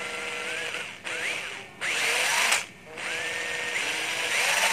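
12V cordless drill/driver motor running on the trigger, with its whine in good order. It is let off and spun up again three times, each start a rising whine, and it stops quickly each time it is released.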